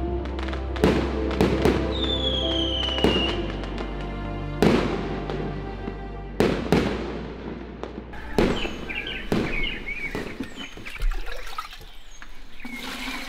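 Fireworks going off: about a dozen sharp bangs, irregularly spaced, with a short falling whistle about two seconds in. Background music runs underneath at first and fades. Birds chirp near the end.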